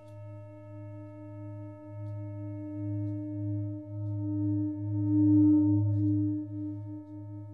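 A sustained ringing drone of several steady tones with a slow, pulsing wobble, swelling to its loudest about five seconds in and fading near the end.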